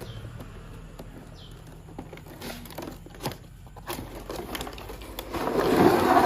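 Light clicks and knocks of plastic toy-train pieces and packaging being handled, then a louder rustle of packaging near the end.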